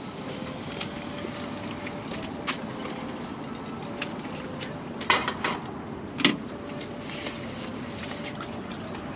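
Home fries with onions and ham sizzling in a frying pan on a stove, a steady hiss with small pops and crackles. A utensil knocks or scrapes against the pan twice, about five and about six seconds in.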